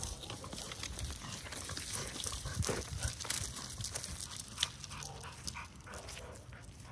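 A bully-breed puppy panting and scuffling about in dry leaves and grass, with scattered crackles and scrapes. Two sharp knocks, a little under a second in and about five and a half seconds in, are the loudest sounds.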